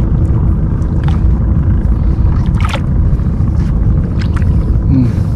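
Steady low rumble of wind on the microphone in a small open boat at sea, with a few light knocks.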